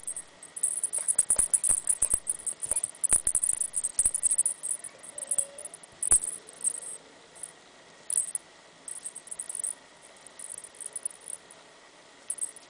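A wand cat toy with feathers and string being shaken and dragged in play, giving a light, high rattling jingle and scattered clicks. It is busy for the first six seconds, with one sharp click just after six seconds, then comes in sparser bursts.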